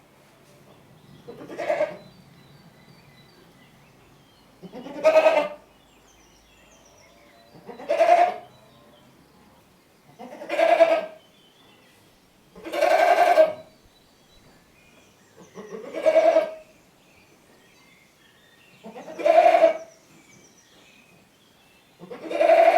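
A goat bleating over and over, about eight separate calls roughly every three seconds, each under a second long, with one somewhat longer call near the middle.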